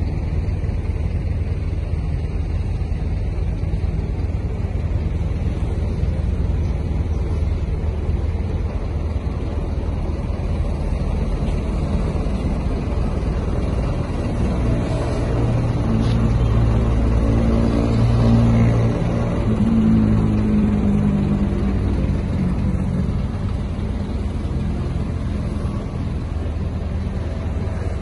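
Heavy-machinery engine running with a steady low rumble, growing louder with its pitch rising and falling as it revs, from about fifteen to twenty-one seconds in.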